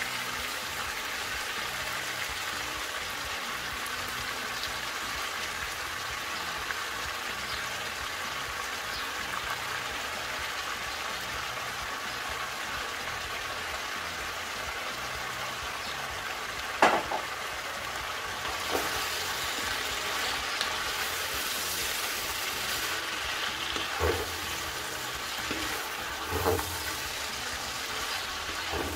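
Mixed vegetables with freshly added shredded cabbage sizzling steadily in a hot non-stick frying pan. In the last third a wooden spatula stirs them, the sizzle grows brighter, and there are a few sharp knocks of the spatula against the pan.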